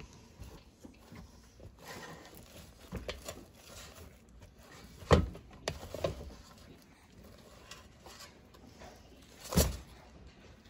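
Silicone spatula knocking and scraping against a Power XL Vortex air fryer's perforated basket while the rolls inside are turned over. A few scattered knocks, the two loudest about five and nine and a half seconds in.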